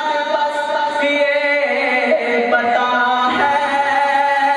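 A man's voice reciting a Punjabi naat, singing in long, drawn-out held notes that step to a new pitch every second or so.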